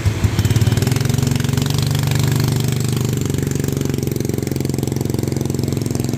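Motorbike engine with a broken exhaust, towing a loaded homemade cart as it pulls away: uneven for about the first second, then a steady rough drone. Rain hisses in the background.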